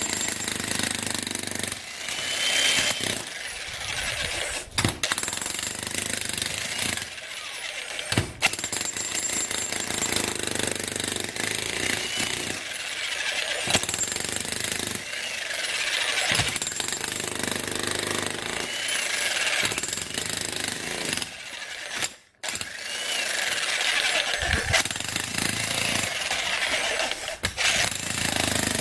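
VEVOR 2200-watt electric demolition jackhammer with a chisel bit hammering into concrete, breaking it up easily. It runs in long stretches with a few brief stops, the clearest about two-thirds of the way through.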